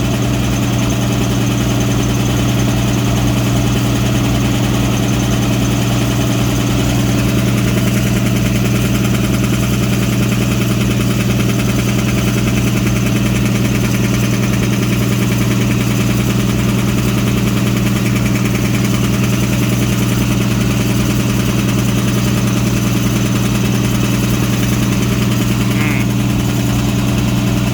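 Homebuilt air compressor with two two-stage piston pumps driven by electric motors, running steadily as it pumps up its tanks.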